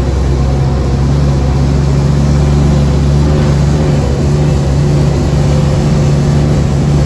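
WW2 DUKW amphibious truck's GMC straight-six petrol engine running steadily, with a deep, even hum.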